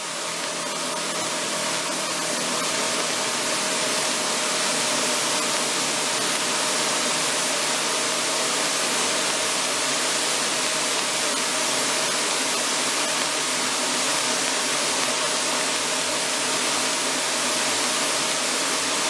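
Inside the cabin of an AeroTrek A240 light sport aircraft in flight: the engine and propeller run steadily, with a few low steady tones, under a loud hiss of airflow. The sound fades up over the first second or two.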